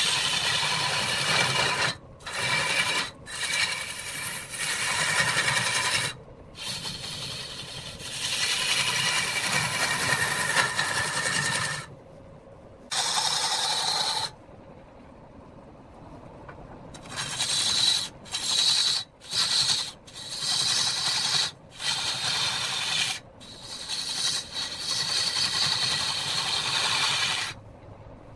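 Turning tool scraping into a large wooden blank spinning on a belt-driven lathe: a loud grinding hiss with a high whine on top. It comes in stretches of a few seconds with short breaks, as the tool is pressed on and lifted off, and the lathe runs more quietly in between.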